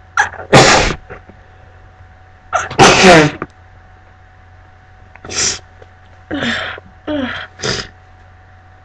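A woman sneezing: two loud sneezes, about half a second in and about three seconds in, then a run of shorter, quieter bursts near the end. The sneezing comes from her cat allergy.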